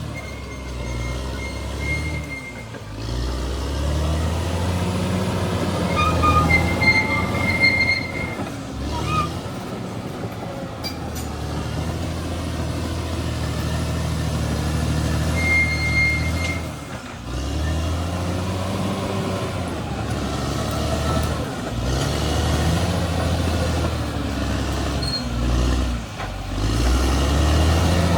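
Crawler bulldozer's diesel engine working under changing load, its pitch and level rising and falling, with a backup alarm beeping in short spells a few times.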